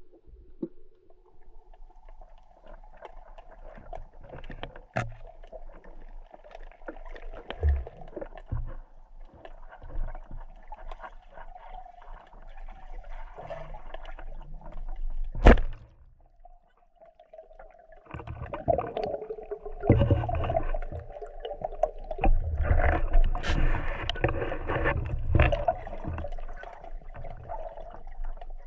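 Muffled underwater noise as a freediver swims: water rushing and gurgling against the camera, with scattered knocks and one sharp click about halfway through.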